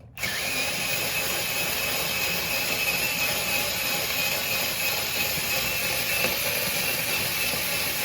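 Small 4-volt cordless screwdriver spinning a 25 ft hand drain auger's drum, its motor whining steadily with the rattle of the cable turning inside, as the cable is wound back into the drum. It starts just after the beginning and keeps an even pitch.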